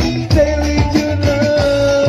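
Kecimol street-band music at full volume: a steady drum beat over heavy bass, with a long held melody note coming in about half a second in.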